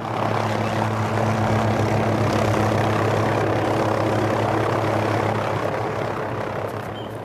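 Helicopter running close by as it lands, a steady engine-and-rotor hum under a rushing noise that eases off over the last second or so.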